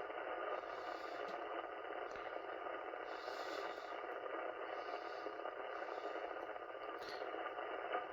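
Shortwave receiver tuned to the 80-metre amateur band, its speaker giving a steady hiss of static from wide-band interference noise that swamps the band. The noise stays even with the operator's own house power switched off, so he doubts it comes from his house.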